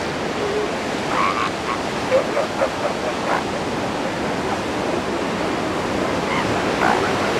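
Surf washing steadily, with a series of short calls from elephant seals between about one and three and a half seconds in, and another call near the end.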